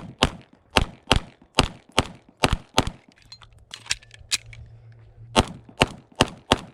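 Rapid pistol fire in an IDPA stage: four quick double-taps in about three seconds. A pause of about two seconds follows, then another quick string of four shots near the end.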